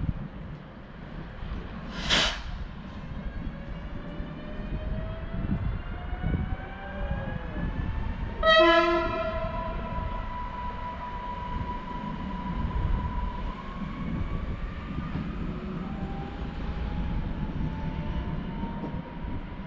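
Newag Impuls electric multiple unit (36WEa) pulling away and accelerating: its traction motors give a whine that climbs in pitch in steps over a running rumble. There is a short burst of hiss about two seconds in, and about midway one short horn blast, the loudest sound.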